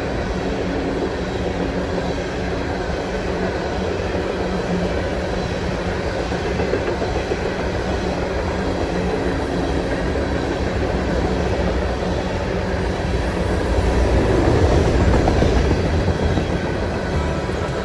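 Freight train rolling past: steady noise of the cars' wheels on the rails, swelling louder about three-quarters of the way through.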